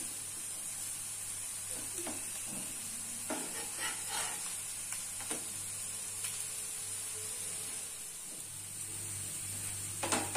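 Potato and sago-flour patties frying in shallow oil on a nonstick tawa, a steady sizzle, with a few light scrapes and taps of a steel spatula pressing them.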